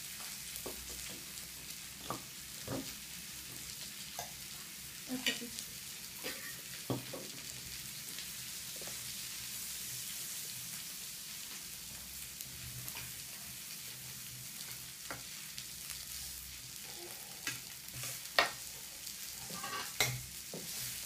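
A steady high hiss with scattered light taps and clicks of a baby's hands on a plastic high-chair tray; the sharpest click comes near the end.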